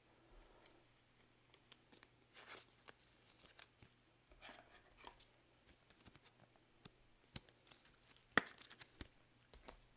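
Faint rustles and light clicks of trading cards being handled by gloved hands. One sharper click comes about eight and a half seconds in.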